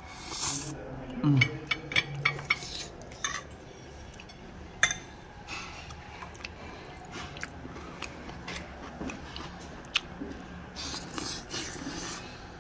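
Metal fork clinking and scraping against a ceramic bowl as food is scooped up, with chewing sounds between the clinks. A short falling hum from the eater comes about a second in.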